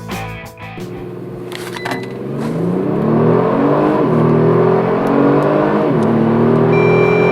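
Kia Stinger GT's 3.3-litre twin-turbo V6 accelerating hard from a standstill under full throttle. The revs climb steadily and drop sharply twice, about 4 and 6 seconds in, as the automatic gearbox upshifts, then climb again. A steady high beep sounds near the end.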